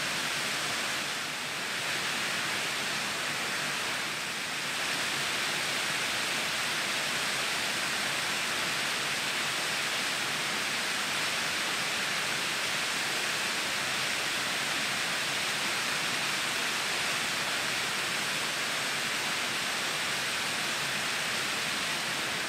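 Shallow stream rushing steadily over rock ledges and small cascades.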